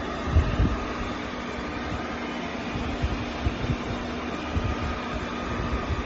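Eufy RoboVac G10 Hybrid robot vacuum running: a steady whirr from its suction fan and brushes, with a faint hum and a few short low thumps.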